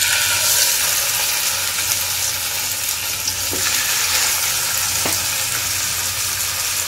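Marinated chicken leg pieces sizzling in hot oil in a non-stick kadai as they are laid in: a steady frying hiss, with a couple of faint knocks as the pieces are set down.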